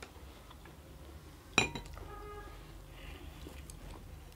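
A single sharp clink of tableware about one and a half seconds in, ringing briefly, over quiet room tone.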